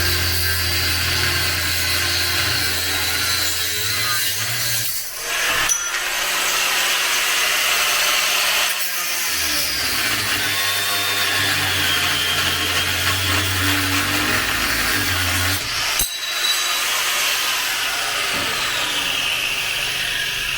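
Angle grinder with a cut-off wheel cutting through metal straps on a frame, its whine sliding down in pitch as the disc bites. The cut pauses briefly about five seconds in and again around sixteen seconds.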